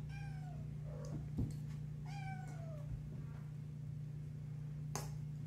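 Kitten meowing twice, each call falling in pitch, with a sharp thump between the calls and a click near the end.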